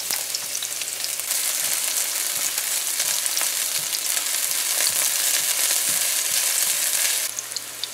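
Chopped onions sizzling in hot oil in a nonstick frying pan, stirred with a spatula. The sizzle grows louder about a second in and drops off sharply near the end.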